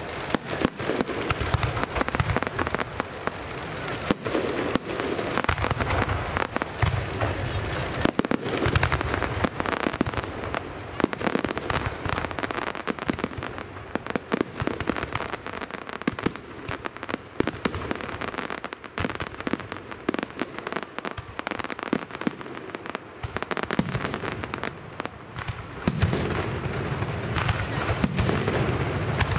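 Fireworks display: a dense, continuous barrage of bangs and crackling from aerial shells and low-level fireworks, with heavier low booms in the last few seconds.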